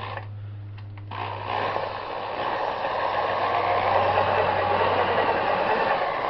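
Junkyard Nissan FS5W71b five-speed transmission spun in neutral on a test rig with its countershaft removed: a steady mechanical whir that builds up over the first couple of seconds, then holds. It is very quiet, with no warbling or bumping.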